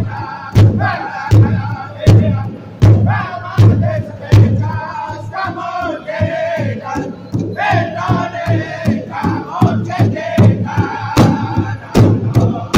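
Powwow drum group singing together in loud, high voices while striking a large hide-covered drum in a steady beat, about four strokes every three seconds. The drumbeats soften in the middle while the voices carry the song, then come back hard near the end.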